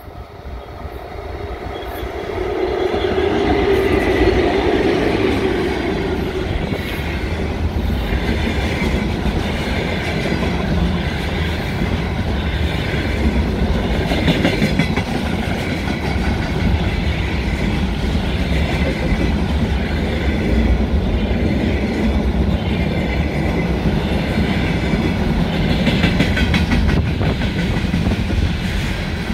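VL10k electric locomotive approaching and passing with a container train, the sound building over the first few seconds. Then a steady rumble and clickety-clack as the loaded container flatcars roll past.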